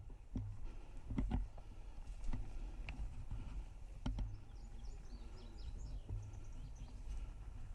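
Outdoor ambience with birds chirping, mostly in the second half. Scattered sharp knocks and clicks run through it over a patchy low rumble.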